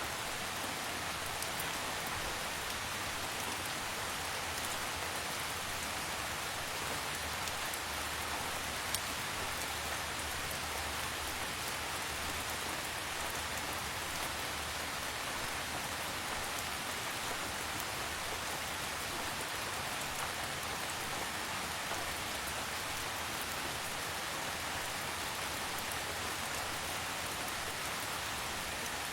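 Steady, calm rain falling: an even hiss peppered with fine drop ticks, with one sharper tick about a third of the way through.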